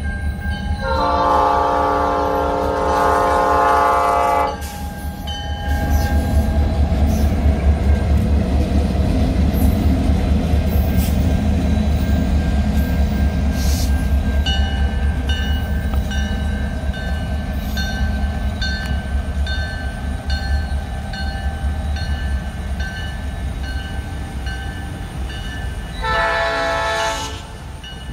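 Diesel freight locomotives sounding a multi-note air horn in one long blast, then rumbling past heavily, with a bell pinging steadily. A second, short horn blast comes near the end.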